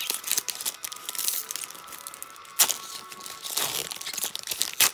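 Foil wrapper of a trading card pack being torn open and pulled apart by hand, crinkling and crackling, with a sharp crackle about two and a half seconds in.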